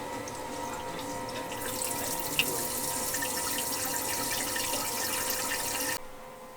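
Water rushing through the dosing arm's nozzles of a grinding and polishing machine during its automatic tube-cleaning cycle, over a steady machine hum. The flow strengthens about a second and a half in and cuts off suddenly near the end.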